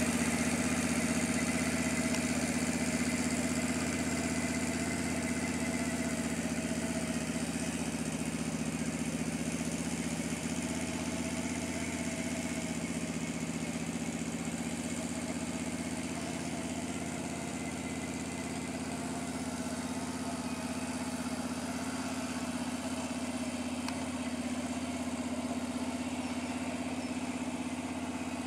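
Can-Am Outlander 650 Max ATV's V-twin engine running at a steady low speed, with no revving, as the quad moves slowly over snow.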